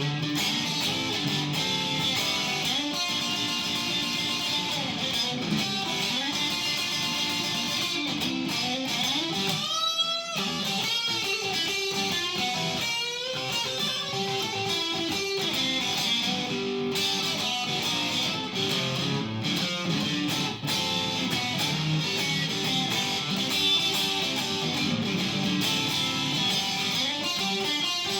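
A solo electric guitar improvising blues, with no accompaniment. Held notes waver in pitch with wide vibrato about ten and thirteen seconds in.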